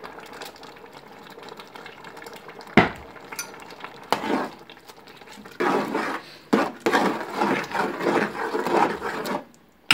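A long spoon stirring thick zucchini adjika in a large aluminium pot, scraping against the pot. There is one sharp knock about three seconds in, and brisk, louder stirring from about five and a half seconds until just before the end.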